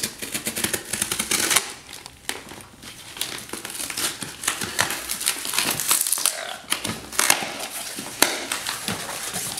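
Cardboard shipping box being opened by hand: a run of crinkling, rustling and sharp crackles of tape and cardboard.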